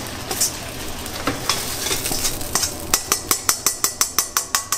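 Hot oil sizzling in a wok as the cooked beef strips are lifted out, with scattered clinks of metal utensils. About three seconds in, a fast, even run of metal-on-metal clicks begins, about six a second, as the sizzling fades.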